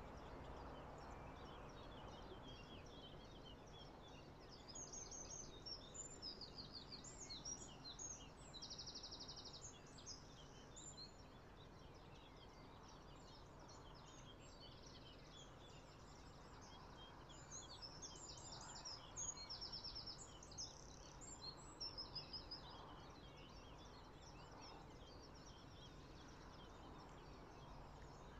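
Small birds singing and chirping in a dawn chorus, high-pitched trills and calls coming in clusters, over a faint steady low background rumble.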